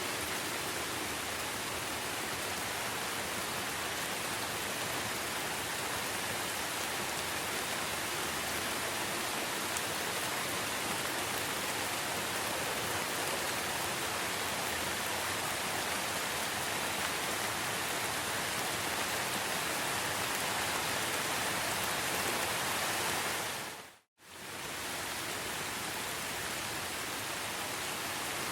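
Steady rain falling, an even hiss of drops. Near the end it fades out to silence for a moment and comes straight back, like a loop point in the recording.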